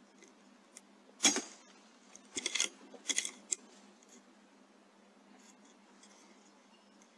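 A single shot from an Airmaks Krait L .22 pre-charged pneumatic air rifle, one sharp crack about a second in. About a second later come two short runs of metallic clicking and rattling.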